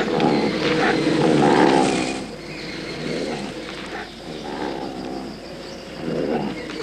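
A leopard and a dog growling and snarling as they play-fight. The growls are loudest in the first two seconds, then come again more quietly in shorter bouts.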